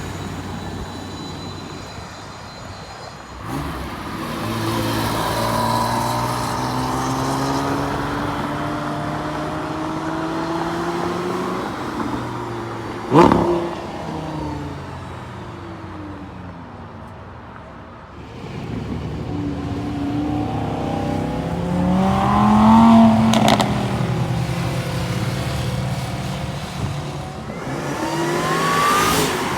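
Performance car engine accelerating hard several times, its pitch rising with each pull. A single sharp bang cuts through about 13 seconds in, the loudest moment.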